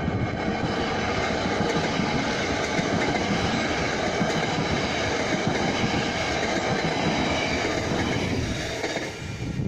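Metlink Matangi electric multiple unit passing close by, its wheels running on the rails in a steady rush of noise. The sound drops away about nine seconds in as the last car clears.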